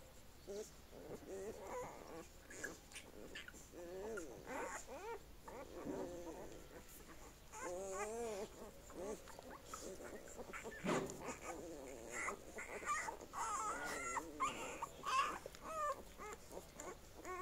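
Newborn Kurdish Pshdar puppies whimpering and squeaking while they nurse: a string of short, wavering cries that grow higher and louder in the second half.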